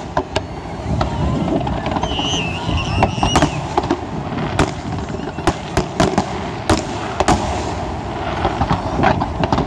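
Fireworks display: aerial shells bursting with about a dozen sharp bangs over a continuous rumble, the bangs coming closer together in the second half.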